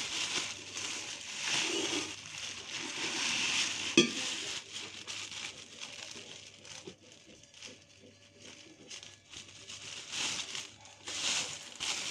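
Thin plastic carry bag rustling and crinkling as it is handled and pulled open in a steel pot, loudest in the first few seconds and again near the end. A single sharp knock about four seconds in.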